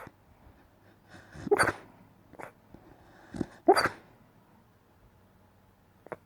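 A dog woofing in its sleep: a handful of short, soft barks, the two loudest about a second and a half and nearly four seconds in, with a faint one near the end.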